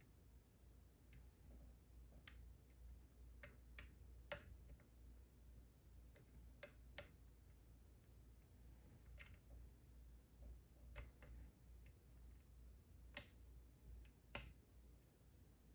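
Irregular small clicks of a dimple pick and tension tool working inside a Goal D9 9-pin dimple lock, a few louder clicks among many faint ones, over a low hum.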